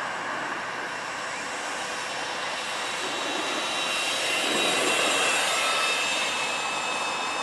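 Cordless drill motor in first gear driving an electric longboard through a bike chain, a steady whine with several high tones over the rumble of wheels on asphalt, growing louder and peaking about five seconds in as the board rolls past, then easing off.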